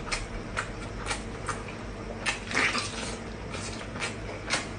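Mouth noises of someone eating: irregular wet smacking clicks, with a louder smack about two and a half seconds in.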